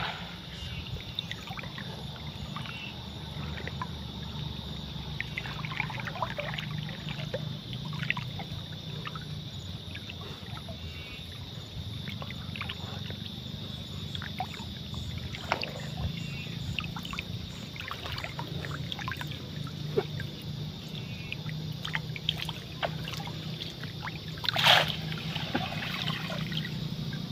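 Water trickling and dripping as a man wades and handles a wet nylon cast net, with one louder splash near the end as the net is hauled out of the water. A steady low rumble sits underneath.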